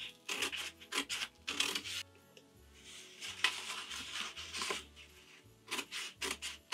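Paper scissors snipping through the paper release liner of a stick-and-tear embroidery stabilizer sheet: several runs of quick snips with short pauses between.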